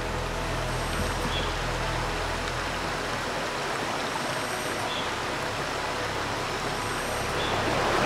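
Mountain valley stream flowing: a steady, even rush of water.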